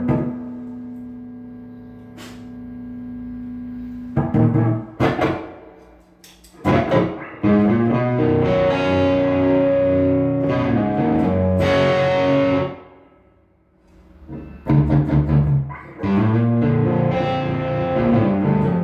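Electric guitar played through an amplifier: a held chord rings out, then short choppy stabs, then sustained chords, a brief pause and more chords. The rig is clean of hum in the pause, so the added pedal brings in no noise.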